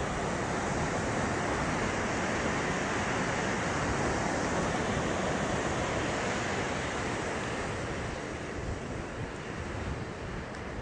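Fast mountain stream rushing over boulders, a steady noise of water that grows a little fainter near the end.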